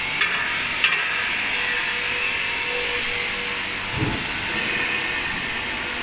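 Steady hiss and hum of factory machinery on a veneer peeling line, with two sharp clicks in the first second and a low thud about four seconds in.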